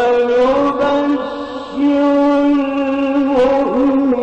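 A male Quran reciter chanting in the melodic mujawwad style, drawing out long held notes with ornamented turns in pitch. The voice drops away briefly about a second and a half in, then takes up a long steady note.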